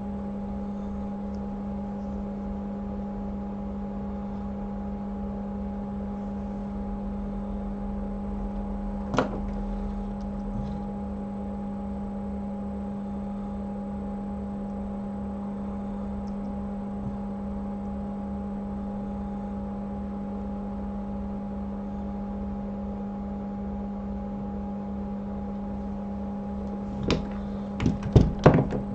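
Steady electrical hum of a hot air rework station blowing while heating a phone logic board, with one sharp click about nine seconds in and a few clicks near the end.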